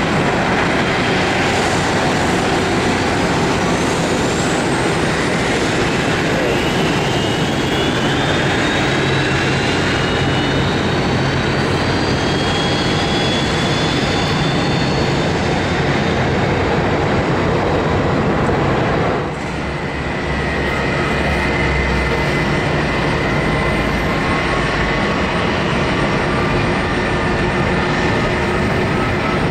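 Airbus A330-300 airliner's Rolls-Royce Trent 700 jet engines running as it taxis, a steady rush with a whine slowly rising in pitch. About two-thirds through the sound dips briefly, then returns with a deeper rumble and another slowly rising whine as the jet lines up on the runway.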